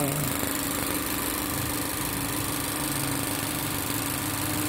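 Mazda 2 Skyactiv-G four-cylinder petrol engine idling steadily, heard close up from the open engine bay.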